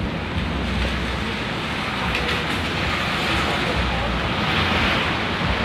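Steady low rumble and even hiss of traffic on wet city streets.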